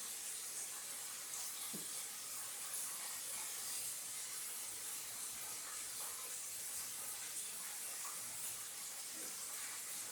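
Battered chicken wings frying in hot oil: a steady sizzle.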